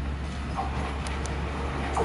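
Train approaching through a station, a steady low rumble with a higher hiss coming in about half a second in.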